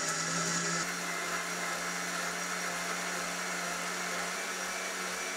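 Electric mixer grinder with a steel jar running steadily, grinding cooked spinach, fenugreek leaves, tomato and chili with a little water into a fine paste. Its motor hum eases slightly about a second in.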